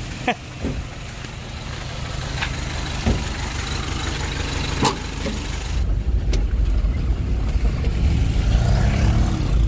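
An engine running under way, with a steady low rumble that grows louder about six seconds in. A few short knocks sound over it.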